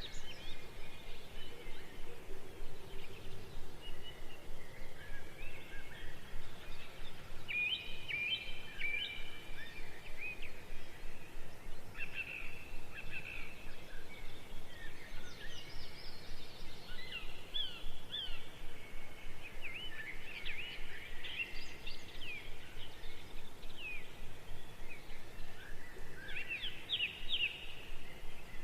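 Birds chirping and twittering in short calls over a steady background noise that pulses evenly several times a second.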